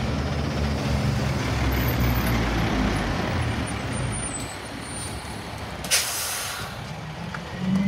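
International rear-loader garbage truck's diesel engine running as the truck pulls up and slows to a stop, easing off after about four seconds. About six seconds in comes a short, sharp hiss of air from its air brakes.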